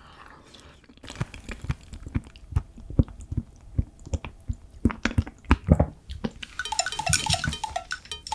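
Close-miked chewing of a mouthful of grilled stingray, with irregular wet clicks and squishes. Near the end comes a short run of bright, repeated electronic tones, an edited-in comic sound effect.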